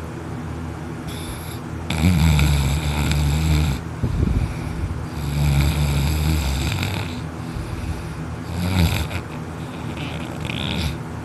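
A man snoring heavily while sleeping on his back with his mouth wide open: loud, drawn-out snores about every three seconds, the longest lasting close to two seconds.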